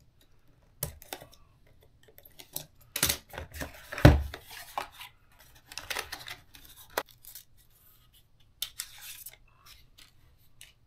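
Unboxing sounds: hands opening a small cardboard product box and taking out a small plastic camera and its cable, with scattered cardboard scrapes, rustles and clicks. A single solid knock about four seconds in is the loudest sound.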